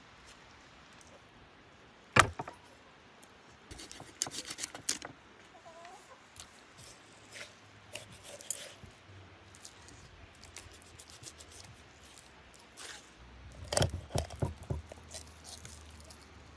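Metal cooking utensils clinking and clattering: one sharp knock about two seconds in, a quick run of clinks a couple of seconds later, scattered light taps, and another run of clinks near the end.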